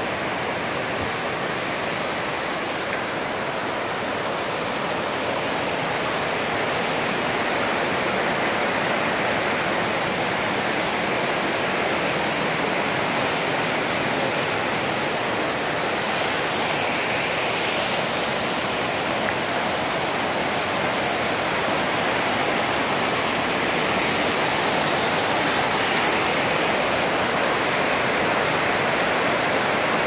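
Låtefossen twin waterfall: a loud, steady rush of heavy falling water, a little louder after the first several seconds.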